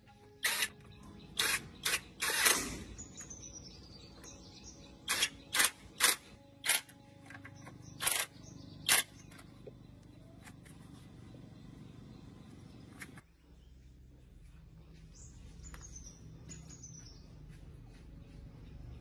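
A series of about ten short, sharp knocks in irregular groups, then, about thirteen seconds in, a low rumble starts and slowly grows louder.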